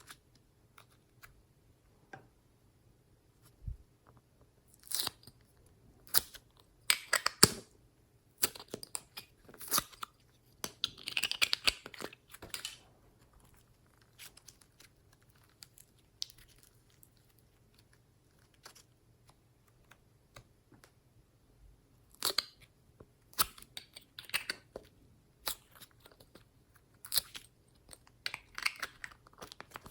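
Glossy slime being squished and stretched by hand: irregular sticky pops, clicks and short crackles with quiet gaps, busier for a stretch in the middle and again near the end.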